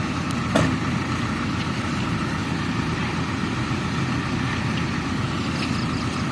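A vehicle engine running steadily at a low, even pitch, with one short click about half a second in.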